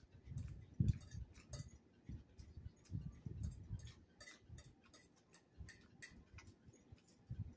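A metal fork clicking and tapping against a plate as fish is picked apart, in many small, irregular clicks mixed with soft, low knocks and eating sounds.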